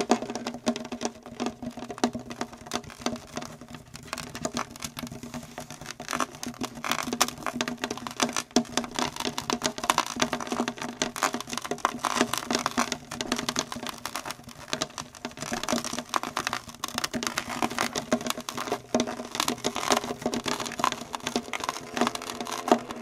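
Experimental improvisation on violas with added objects: a dense, uneven stream of quick clicks and taps over a steady low sustained tone.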